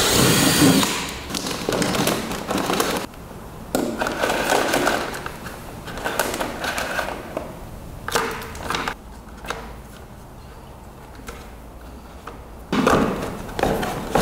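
Hand-work noises on low-voltage wiring: irregular clicks, scrapes and rustles as wires are worked with hand pliers and plastic parts are handled, with a louder burst of handling near the end.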